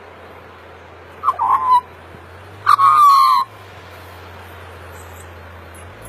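Australian magpie giving two short calls about a second and a half apart. The second call is louder and longer, with a slightly falling pitch.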